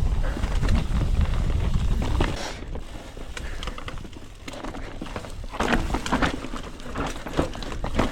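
Mountain bike descending a steep downhill trail: wind buffets the microphone for the first two seconds, then the tires and frame clatter and knock over rocks and roots.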